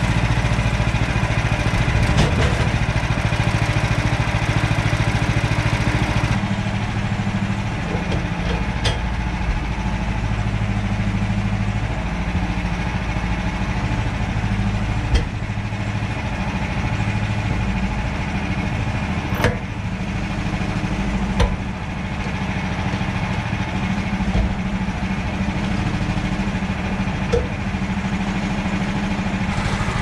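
Woodland Mills HM130 portable bandsaw mill running steadily, its gas engine driving the band blade through a red pine log, with a few sharp clicks along the way. The engine note shifts slightly about six seconds in.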